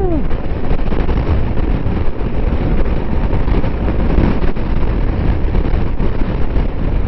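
Heavy wind noise on the microphone of a BMW R1250 GS Adventure motorcycle riding at speed: a dense, steady rush and rumble with the bike's road noise beneath.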